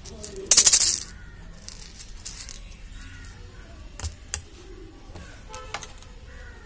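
Hands handling a small hollow plastic toy ball. There is a brief loud plastic rasp about half a second in, then a few light plastic clicks.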